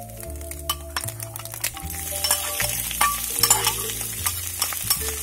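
Scrambled egg sizzling in hot oil in a wok while a metal spatula stirs and scrapes through it, with many sharp scraping clicks against the pan. Background music plays underneath.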